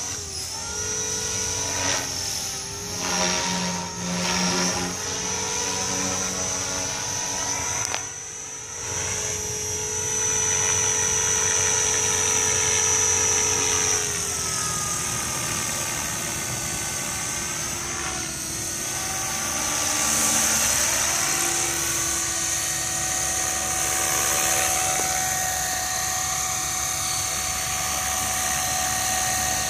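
Blade 500 electric RC helicopter flying 3D aerobatics: a steady high whine from its motor and rotor head with a pitched rotor buzz that rises and falls as it manoeuvres, dropping lower about halfway through.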